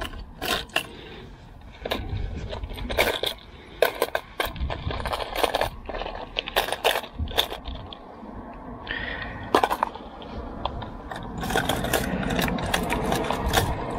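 Hard-bait fishing lures clattering and clicking against each other and a plastic tackle box as they are rummaged through: irregular sharp clicks and rattles.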